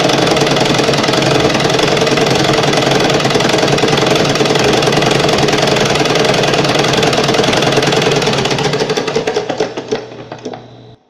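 Sewing machine running at a steady speed, then slowing near the end so the separate stitch strokes can be heard spreading apart before it stops.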